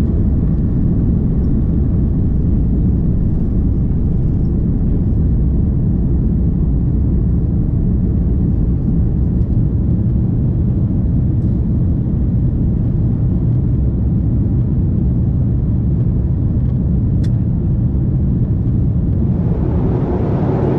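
Airbus A330-300 cabin noise during the takeoff run and initial climb: the engines at takeoff thrust and the airflow make a loud, steady low rumble. Near the end a higher hiss rises over it.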